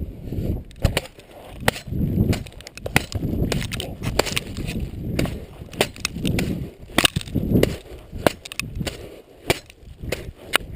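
Machete hacking repeatedly into the packed snow of a snow fort: irregular sharp chops and crunches, about one or two a second, with heavier low thuds every couple of seconds.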